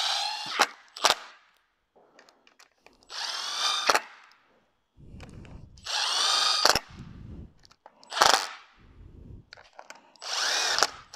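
Cordless electric screwdriver running in about four short bursts, each a second or less, with a few sharp clicks between, driving bolts down on a Saab B204 rocker cover. The outer bolts go first so the cover comes down evenly.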